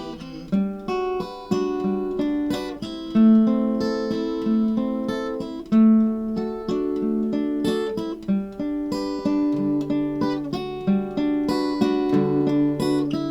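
Acoustic guitar playing an instrumental passage of picked notes and strums, with no singing.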